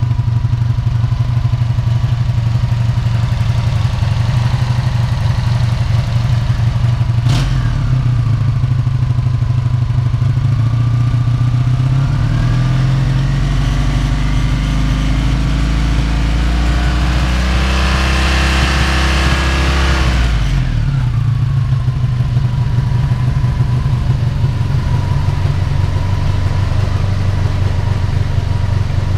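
1983 Honda Magna V65's 1100 cc V4 engine idling on new carburetor boots. A sharp click comes about seven seconds in. About twelve seconds in the engine is revved slowly upward for several seconds, then drops quickly back to a steady idle.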